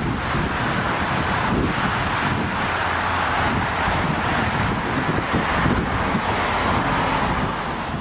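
Loud, steady outdoor background noise: a fluctuating low rumble under an even hiss. A high, evenly pulsing insect trill runs over it throughout.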